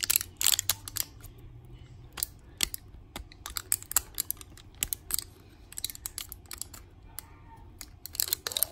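A foil toy packet crinkling and crackling as fingers peel and tear open its sealed edge, in irregular clusters of sharp crackles.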